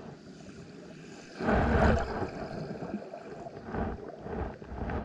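Shallow surf heard through an underwater camera: muffled rushing and gurgling water, with a loud surge of a wave washing over about a second and a half in, then softer swells.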